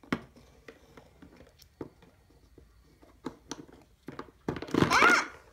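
Small plastic toy pieces clicking and tapping as a hand sets them down and moves them on a cardboard playset. Near the end comes a louder, brief voice-like sound.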